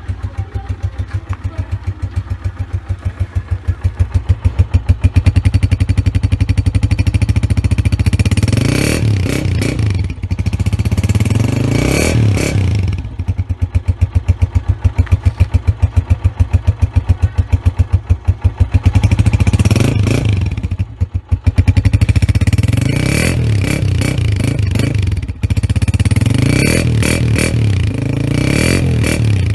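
Honda CG125's single-cylinder four-stroke engine, exhausting through a KYH Atlas Honda (SC) silencer, running steadily. It is revved up and let fall back several times, with quick rev blips about a third and again about two-thirds of the way through.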